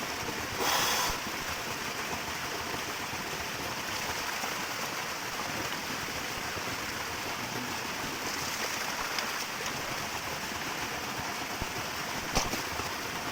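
Small waterfall and stream running steadily, with a short louder burst about a second in and a sharp click near the end.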